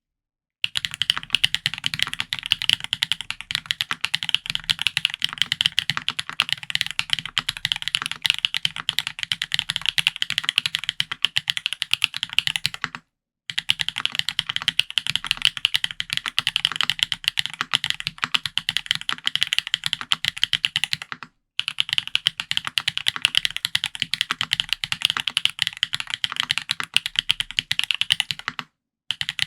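Fast, continuous typing on a custom IRON165 r2 mechanical keyboard with lubed Yok Holy Panda tactile switches, GMK keycaps and a copper plate: dense keystrokes, each a sharp click, pausing briefly three times.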